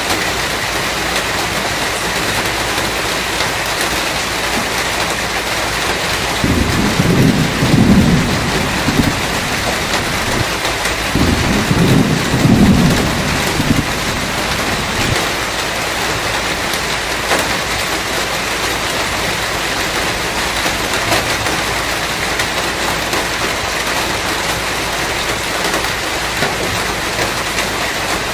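Steady heavy rain hiss with two rolls of thunder. The first rumble starts about six seconds in, the second about eleven seconds in, and each lasts two to three seconds.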